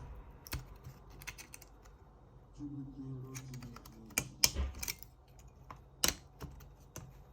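Scattered light clicks and taps of hand tools prying at an opened laptop's internals, with sharper clicks about four and six seconds in.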